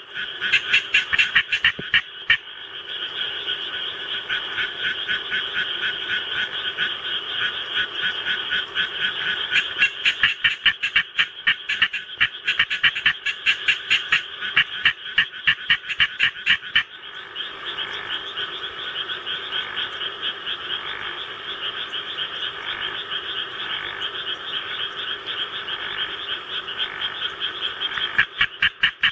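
Japanese tree frog calling: rapid runs of short, raspy croaks repeated many times a second. The calls come in loud runs near the start, in the middle and at the end, over a denser, steadier frog chorus.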